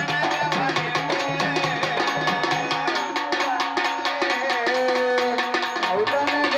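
Live Indian folk music: an electronic keyboard plays a melody over a fast, steady hand-drum rhythm.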